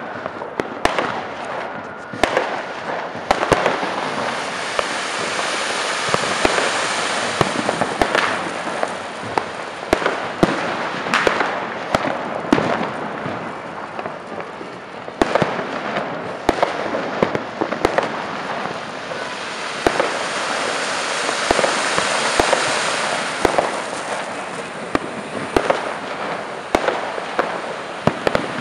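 Akashdeep 2-in-1 pot fountain fireworks spraying sparks with a steady rushing hiss that builds up in the first few seconds and swells and eases, with many sharp pops and crackles scattered throughout.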